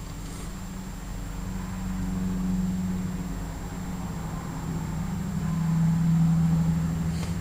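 A motor vehicle's engine running nearby: a steady low hum that swells twice, loudest near the end.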